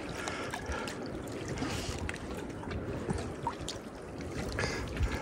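Small waves lapping and gurgling against a rocky lake shore, with a few light clicks scattered through.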